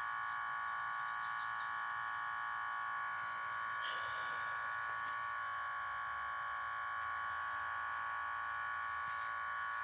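Steady electrical buzz from the battery discharge setup drawing about 8 amps, a constant whine of several steady tones with the strongest near 1 kHz.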